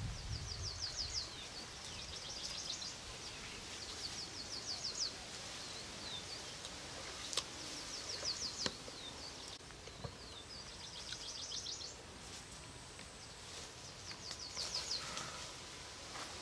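Outdoor rural ambience with a high, rapid chirping trill of about ten notes a second. Each burst lasts about a second and comes again every few seconds. A few sharp clicks fall around the middle.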